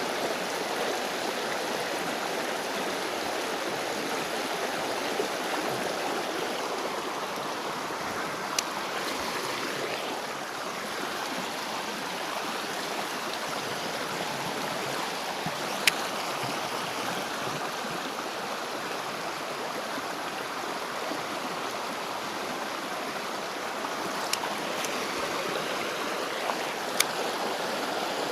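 Shallow flowing stream running steadily, with a few brief sharp clicks now and then.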